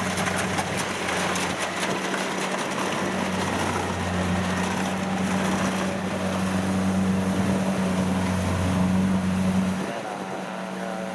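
Kubota DC-70 combine harvester's diesel engine running steadily while harvesting rice. The drone swells a little in the middle and drops in level near the end.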